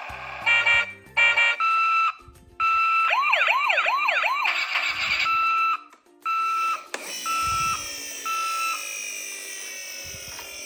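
Toy emergency vehicles' electronic sirens: a two-tone hi-lo siren, then a few seconds of fast repeated rising yelp sweeps, then the hi-lo notes again in short bursts. Near the end a tone glides slowly downward.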